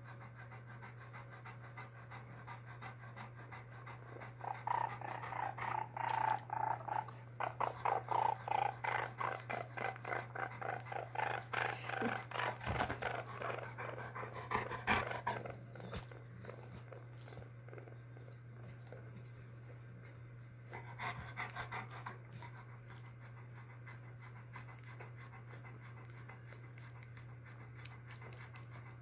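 Baby raccoon cooing and purring in quick, pulsing runs, a long bout starting about four seconds in and a short one near the two-thirds mark.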